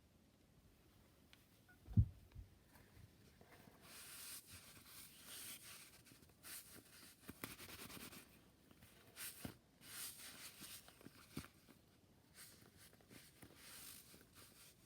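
A single soft thump about two seconds in, then faint, irregular rustling and scraping with a few light clicks.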